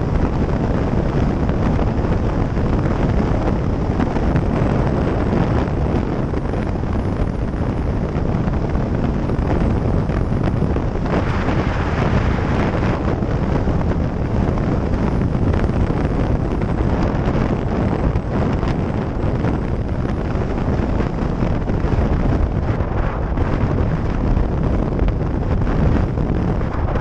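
Wind rushing over the microphone of a motorcycle-mounted camera at motorway speed, with the bike's engine and tyre noise underneath. About eleven seconds in, the rush grows louder for a couple of seconds.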